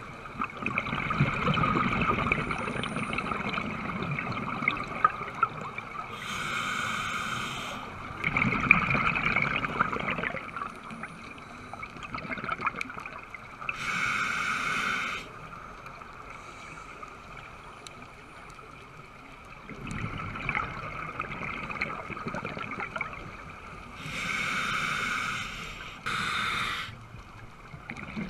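Scuba diver breathing through a regulator underwater: slow breaths, each a short hissing draw of air through the regulator followed by a longer stretch of bubbling, gurgling exhaust bubbles.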